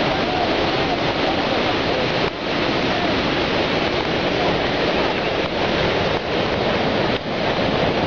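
Jog Falls, a high plunge waterfall, with its water crashing down into spray: a steady, loud rush of falling water.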